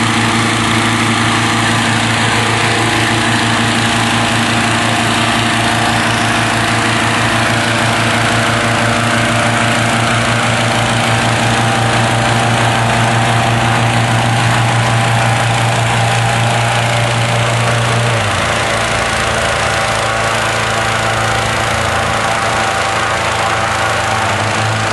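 Petrol-engined inflator fan running steadily at high speed, blowing cold air into a lying hot-air balloon envelope; its low engine note drops a little about three-quarters of the way through.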